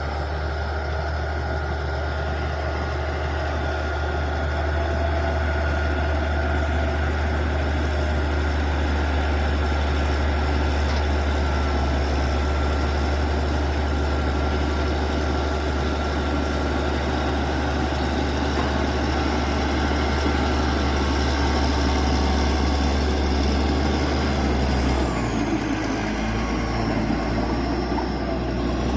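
Caterpillar D6G bulldozer's diesel engine running steadily with a deep hum and a faint whine above it. The engine note shifts briefly about 25 seconds in.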